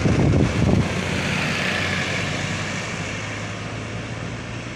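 Heavy diesel truck engine running as it passes. It is loudest in the first second, then settles into a steady drone that slowly fades.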